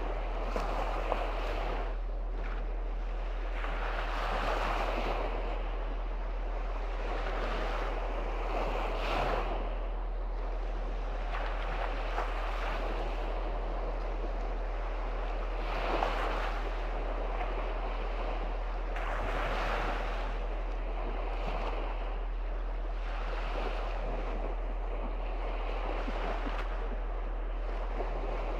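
Small sea waves breaking and washing up a sandy shore. The surf swells and falls every three to four seconds over a constant wash, with a steady low hum underneath.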